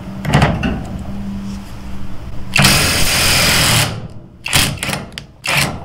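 Hercules HCB84B 20V brushless 1/2-inch impact wrench breaking loose a hitch-ball nut torqued to 200 ft-lb. The motor hums steadily for two or three seconds, then the wrench hammers in one loud, dense burst of just over a second, followed by a few short bursts near the end as the nut comes free.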